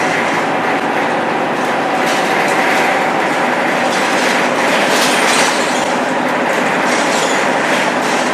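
Cabin noise of a Scania K230UB bus under way: its 9-litre five-cylinder diesel and ZF 6HP502C automatic gearbox running, with steady road noise and occasional rattles from the body, a little louder about five seconds in.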